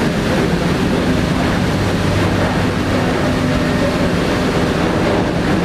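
Steady engine-room machinery din aboard a passenger ferry: a dense, even mechanical roar with a constant low hum running through it.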